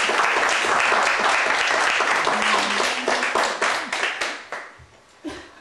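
A small group of people clapping, with voices mixed in; the applause dies away about four and a half seconds in.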